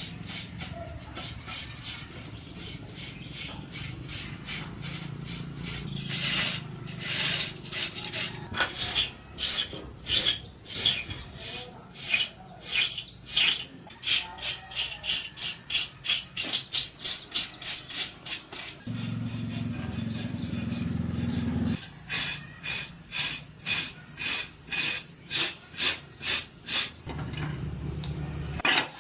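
Hand scraping or sanding of a part, repeated back-and-forth strokes at about two a second. A low steady hum comes in for a few seconds past the middle and again near the end.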